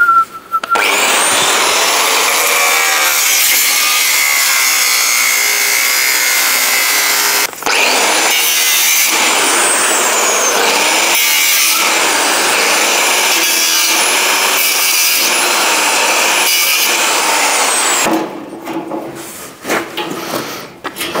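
Angle grinder with a cutting disc runs and cuts through the welds and screws holding steel mesh on a trailer door. It runs almost without a break, pausing briefly about seven seconds in, and stops near the end, followed by the clatter of the loose mesh being pulled away.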